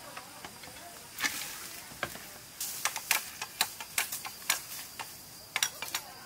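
Machete striking a green bamboo pole, a run of sharp knocks about two to three a second, as the side shoots are trimmed off. A brief rustling rush comes just over a second in.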